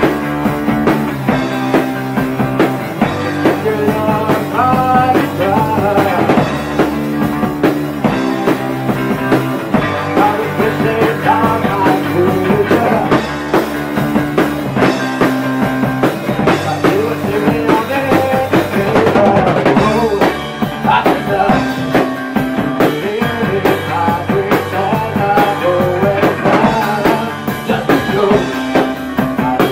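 Rock band playing live on electric guitars, bass guitar and drum kit: steady rock drumming under sustained guitar chords, with a melody line sliding up and down in pitch above them.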